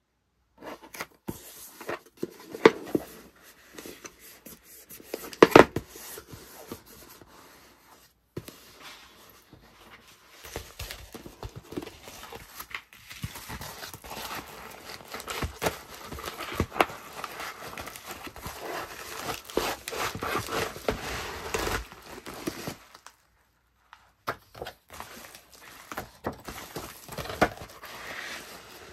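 Close-up packing sounds: a paper card and a cardboard shipping box are handled on a table, with two sharp taps in the first several seconds. Then comes a long stretch of plastic crinkling and rustling as a pink bubble mailer is opened and the box is slid inside.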